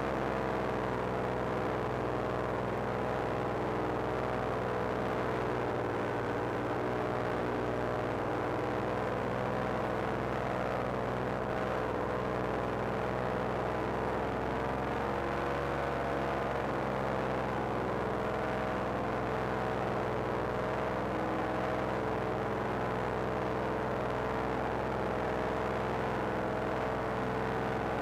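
Paramotor engine and propeller droning steadily in flight, its pitch wavering slightly about halfway through.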